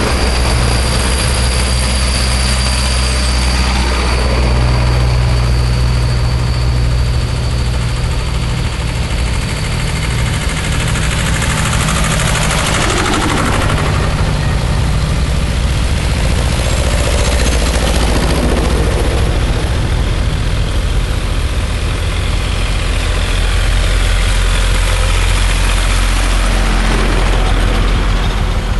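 A line of tractors driving past one after another, their engines running loud and steady. The low engine note shifts a few times as each tractor comes by.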